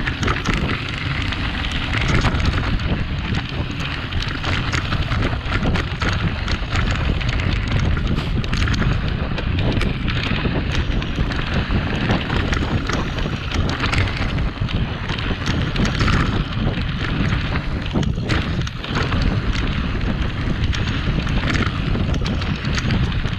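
Mountain bike ridden along a dry dirt trail: steady wind rush over the microphone with tyres rolling on dirt and loose gravel, and frequent clicks and rattles from the bike and kicked stones.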